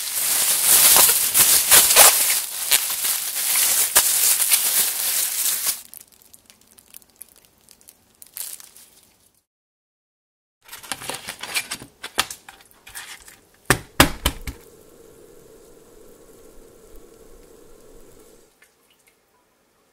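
Plastic bag crinkling and rustling as chicken thighs in yogurt marinade are kneaded through it by hand; it fades out about six seconds in. After a moment of silence come a run of sharp clicks and knocks, then a faint steady hiss.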